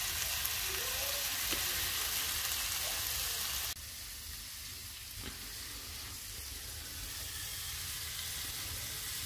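Honey-glazed squirrel sizzling in a hot ridged grill pan, a steady frying hiss. The sizzle drops suddenly quieter about four seconds in and carries on at that level.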